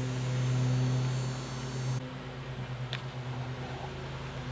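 Steady low mechanical hum that turns into a pulsing drone about two seconds in, with a single sharp click about a second later.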